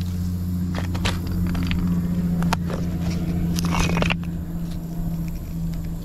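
Scattered crunches and clicks of stones and gravel shifting under someone moving over a rocky river bar, with a longer scraping cluster about four seconds in. A steady low hum runs underneath.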